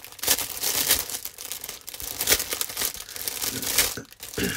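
Crinkling and rustling of the plastic bag wrapping a model kit's sprues as they are handled, in uneven loud scrunches.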